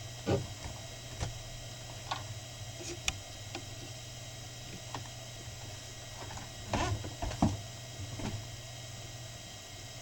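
Small CNC mill machining a printed circuit board: a steady motor hum with a few fixed whining tones, broken by short, irregular knocks and whirrs as the machine moves.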